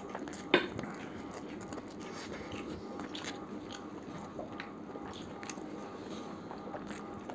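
Two people eating mutton biryani by hand: chewing and mouth sounds with scattered small clicks, and one sharper click about half a second in.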